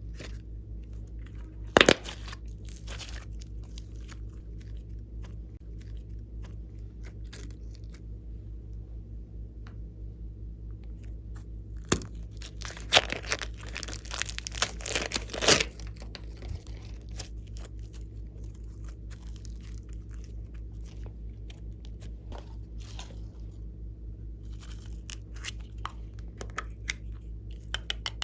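Glossy slime being squished and stretched by hand, making clusters of crackly clicks and pops. The loudest clusters come about two seconds in and for several seconds around the middle, over a steady low hum.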